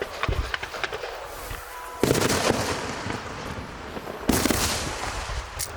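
Aerial fireworks going off: two loud bangs about two seconds apart, each trailing off in a crackling hiss, with scattered smaller pops between them.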